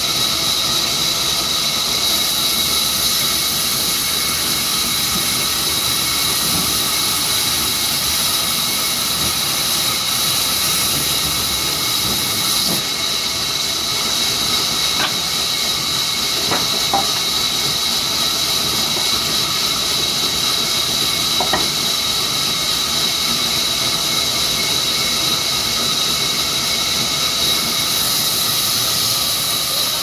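Large sawmill band saw running and cutting mango wood planks: a loud, steady high-pitched whine over a hiss.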